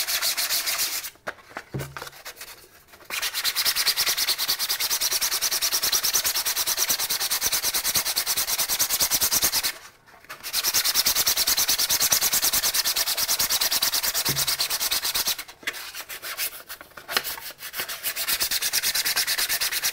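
Hand sanding with 150-grit sandpaper on an ABS 3D print coated with dried ABS slurry: quick, steady back-and-forth scratching strokes. The strokes stop for about two seconds near the start, pause briefly at the middle, and come in shorter spurts near the end.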